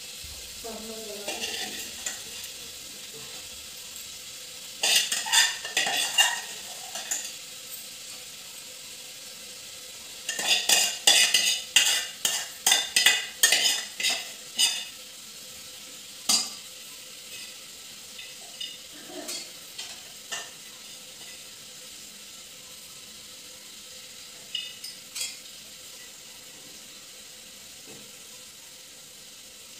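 A metal spoon scraping and stirring in a small steel pan of tempering (tadka) heating over a gas flame, over a steady low sizzle. Two runs of quick scraping strokes, the longer and louder one about ten seconds in, then a few scattered clinks.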